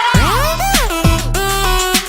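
Electronic background music with gliding synth notes and a steady bass beat.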